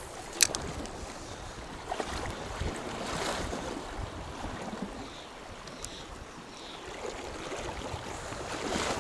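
Wind gusting on the microphone over the rush of river water, with one sharp click about half a second in.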